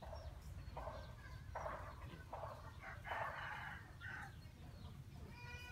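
A series of about six short raspy animal calls, roughly one every three quarters of a second, the longest a little after three seconds in. Near the end a drawn-out pitched call begins.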